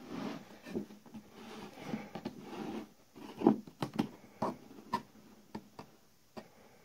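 Handling of a plywood trunnion segment and a steel ruler against an aluminium tabletop: soft rubbing and scraping, then a quick run of sharp clicks and light knocks about halfway through.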